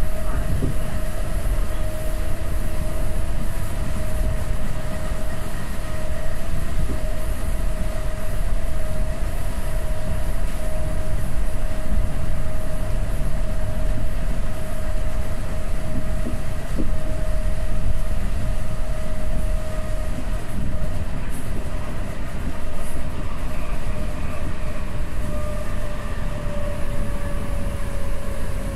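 Interior of an ÖBB class 4020 electric multiple unit running at speed: a continuous rumble of wheels on the track, with a steady whine that drops slightly in pitch near the end.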